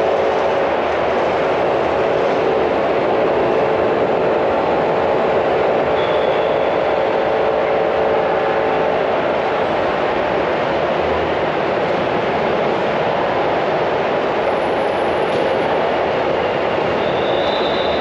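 Steady, continuous hum of slow airport curbside traffic, cars and shuttle buses idling and creeping along the drop-off lanes under a covered canopy. A brief faint high squeal comes about six seconds in and again near the end.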